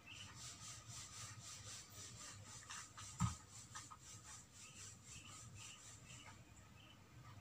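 Hands rubbing and scratching over cloth in quick, faint, repeated strokes that stop about four and a half seconds in. One dull thump comes about three seconds in.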